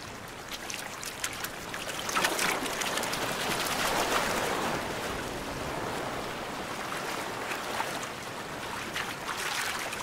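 Shallow surf washing over sand among masses of spawning Gulf grunion, a watery rush that swells about two seconds in and slowly eases off, with light splashing from the thrashing fish.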